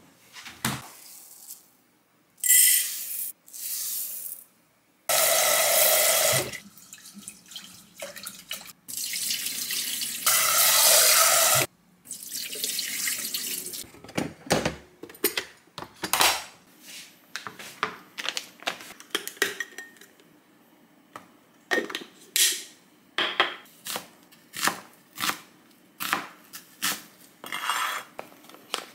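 Kitchen tap water running into the sink in several bursts, then a string of knocks and clicks from handling pots and utensils. It ends with a chef's knife cutting an onion on a cutting board in evenly spaced strokes.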